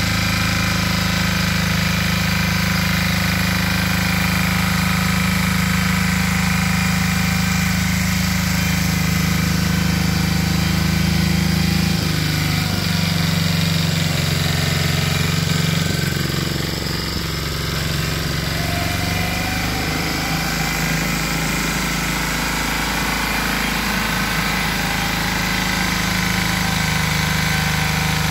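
Valpadana walk-behind tiller with its 8 hp, 359 cc Lombardini engine, running steadily under load as the tines churn the soil. The engine note shifts about halfway through and runs slightly quieter after that.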